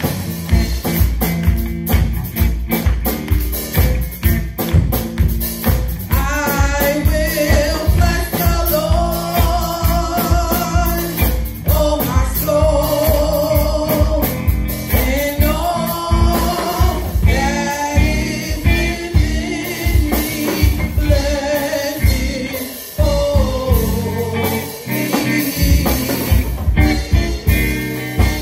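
Gospel song sung by several women's voices into microphones, over loud instrumental accompaniment with a steady beat and heavy bass. The sung lines come in a few seconds after the start.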